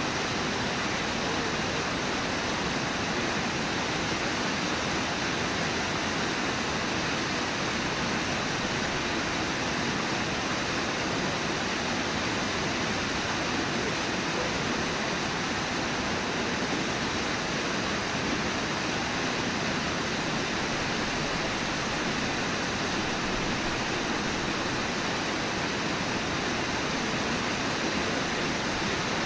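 Waterfall: a steady, unbroken rush of water pouring over the falls.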